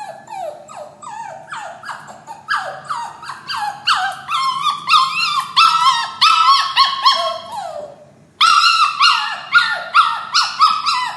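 Puppy crying in distress while shut in a cage: a rapid run of high whines and yelps, each sliding down in pitch, about three a second. There is a short break about eight seconds in, and then the crying comes back louder.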